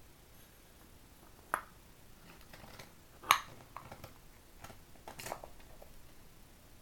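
Scattered sharp clicks and knocks of metal bench-grinder parts being handled and set down, with one louder knock about a second and a half in and the loudest about three seconds in.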